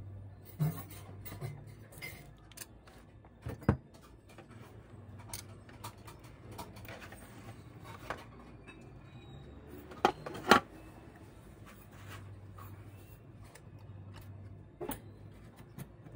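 Scattered clicks, knocks and rubbing of a graphics-card circuit board being handled and shifted on a workbench under a microscope, the loudest a pair of sharp knocks about ten seconds in, over a steady low hum.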